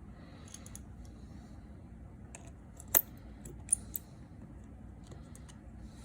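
Small metallic clicks and taps of tools and tiny parts being handled while reassembling a smartphone. One sharp click comes about three seconds in, and two lighter ones follow within a second.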